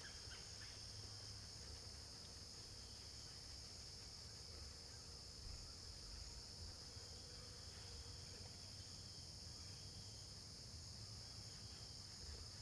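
Steady, high-pitched chorus of field crickets and other insects, with a faint low rumble underneath.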